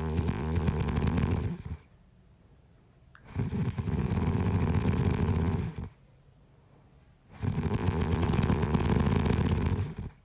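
A sleeping man snoring in a steady rhythm. Long snores of about two and a half seconds come roughly every four seconds, three of them here, with quiet gaps between.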